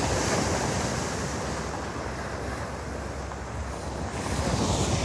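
Stormy sea surf breaking and washing up the beach, a steady rush that swells twice, at the start and again near the end, as waves roll in.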